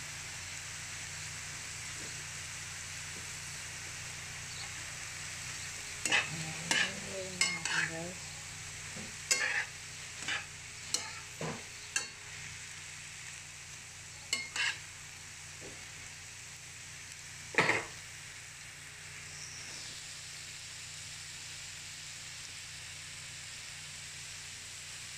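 Sliced bitter melon and tomato sizzling steadily in a frying pan. A metal spatula stirs them, scraping and clinking against the pan in a run of strokes between about six and fifteen seconds in, then once more near eighteen seconds.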